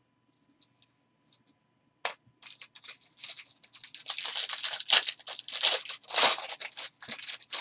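Plastic wrapper of a basketball trading-card pack being torn open and crinkled. After a few faint clicks it starts about two seconds in as a run of sharp crackles, loudest in the middle, and stops just before the end.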